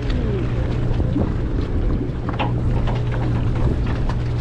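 Sportfishing boat's engine running with a steady low drone, with wind on the microphone and scattered small clicks.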